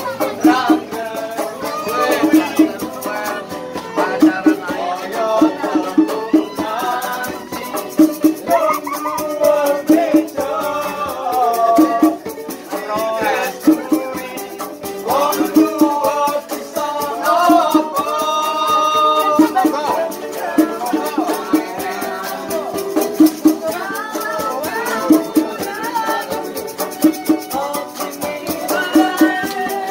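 Street musicians playing a song live: a voice sings a melody over the band, with a shaker keeping a steady rhythm.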